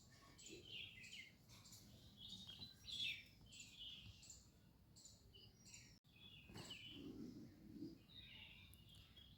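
Small birds chirping faintly in quick, repeated high chirps, with a short lower-pitched sound about seven seconds in.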